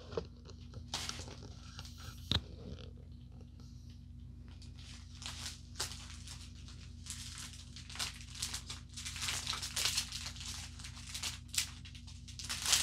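Plastic packaging crinkling and rustling as it is handled, in scattered short rustles that get busier toward the end, with one sharp click about two seconds in. A faint steady low hum sits underneath.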